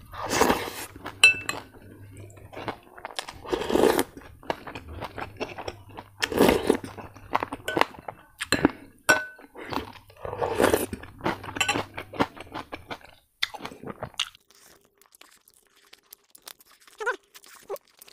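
Close-up eating sounds: crunching and chewing crispy fried pork with rice, with several loud slurps of soup from a spoon and small clinks of a metal spoon against a ceramic bowl.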